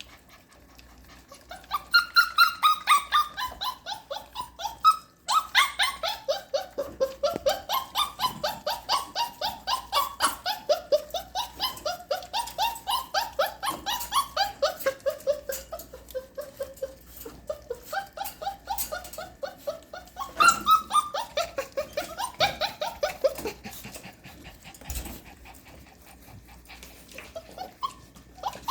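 Young puppy whining and crying in a rapid string of high-pitched yelps, about five a second, the pitch sliding up and down. The cries start about two seconds in, break off briefly, then go on and die down near the end; the owner takes it as the puppy wanting to come outside.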